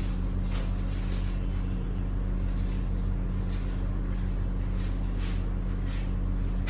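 A steady low electrical-type hum, with scattered soft rustles and clicks of something being handled.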